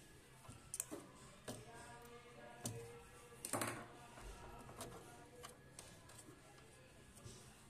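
Scattered faint clicks and knocks of the plastic and metal parts of a Zebra ZXP Series 3 card printer's printhead mount being handled as a new printhead is fitted, about half a dozen in all, the loudest about three and a half seconds in.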